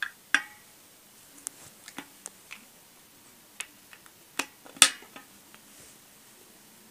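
Slime being squeezed and pulled in the hands, giving about a dozen irregular sharp wet pops and clicks, the loudest a little under five seconds in.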